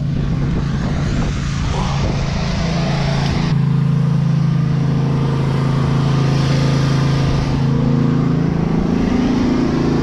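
An engine running at a steady speed, a constant low drone; about three and a half seconds in the hiss above it drops away and the drone grows louder.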